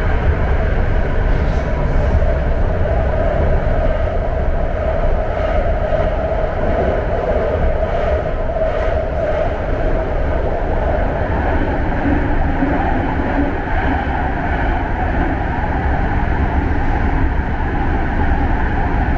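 BART train running between stations, heard from inside the passenger car: a steady, loud rumble of wheels on rail with a hum that shifts in pitch partway through.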